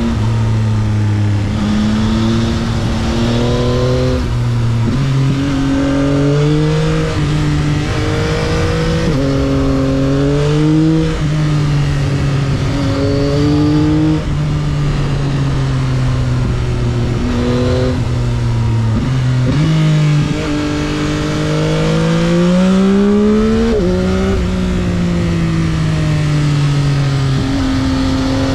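2022 Yamaha XSR900's inline-three engine on its stock exhaust, pulling hard and changing gear: its pitch climbs and then drops sharply, over and over, with one long rising pull near the end. Wind rush on the helmet-mounted microphone runs underneath.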